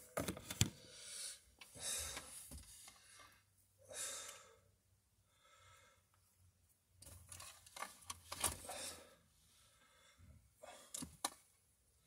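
Quiet handling sounds of fingers working a thin speaker wire by a car stereo head unit: scattered rustles and small clicks, the sharpest click about half a second in, with breaths in between.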